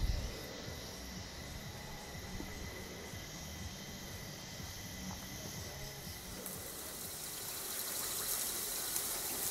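Faint outdoor ambience: a steady low hiss with thin, steady high tones. About six and a half seconds in, a brighter, higher hiss starts: food frying in a pan.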